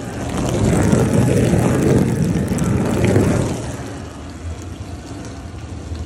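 Whirlpool dishwasher running after its clogged spray path has been cleared: a low motor hum under a rushing wash of noise, loudest in the first half.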